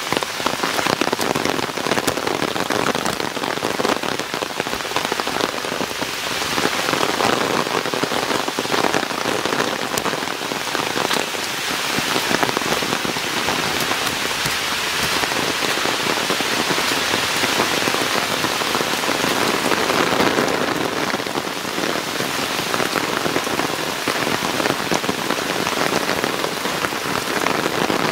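Steady monsoon rain, a dense patter of drops falling on forest leaves and the trail.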